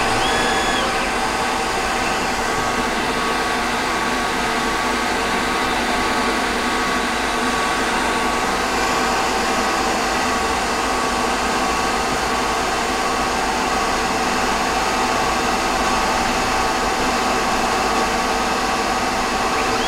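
Emco Compact 5 PC lathe spindle running steadily in its high speed range, its motor on a variable-frequency drive: an even mechanical whir with several steady whining tones. A brief higher tone rises and falls about half a second in.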